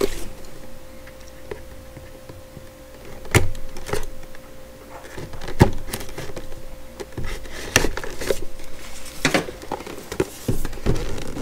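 A cardboard microphone box being handled and turned over by hand, with several sharp taps and knocks spread through and the rustle of handling between them.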